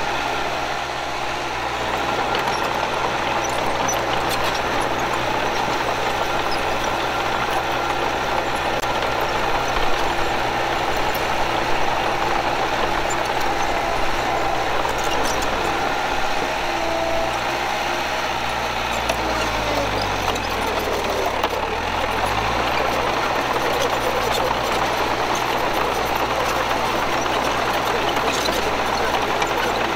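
Diesel engine of heavy earthmoving equipment running steadily under work. About twenty seconds in, its note dips and then climbs back up.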